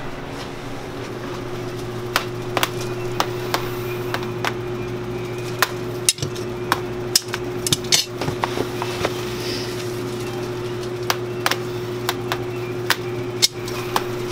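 Steady electrical hum from workshop equipment, with irregular sharp clicks and clinks of hard objects on the work table.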